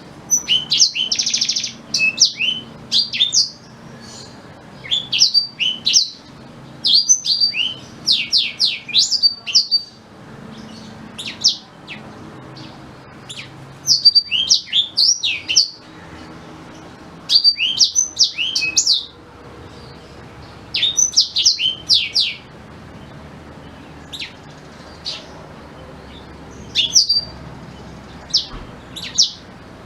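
Black-throated canary (blackthroat) singing: rapid, high chirping phrases of quick sweeping notes, each lasting one to three seconds, repeated with short pauses between.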